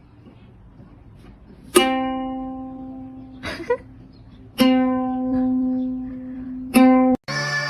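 A plucked string instrument sounds the same single note three times, a couple of seconds apart, each note ringing and slowly fading. A short sliding sound comes between the first and second notes.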